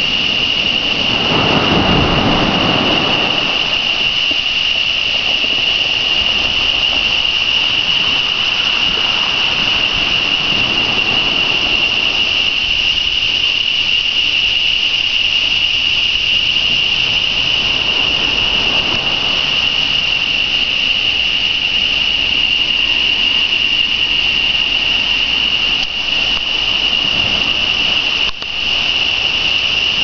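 Evening chorus of tropical jungle insects: a loud, continuous high-pitched buzz that holds one pitch, dipping briefly near the end. A few low rushing swells of noise rise and fall beneath it.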